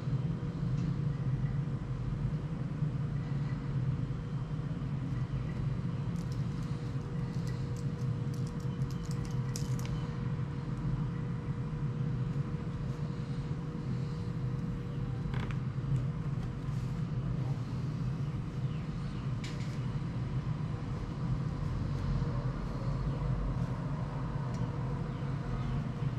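Steady low hum with a faint steady whine above it, and light scratching and ticking of a ballpoint pen writing on paper, busiest about six to ten seconds in.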